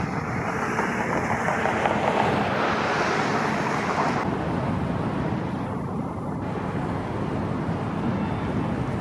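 Road traffic: a steady rush of passing vehicles, louder and brighter for the first four seconds or so, then easing off.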